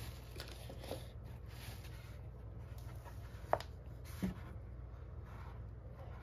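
Faint handling sounds of a large plastic bottle and a roll of toilet paper being picked up and moved: soft rustling, with two small sharp knocks about three and a half and four seconds in.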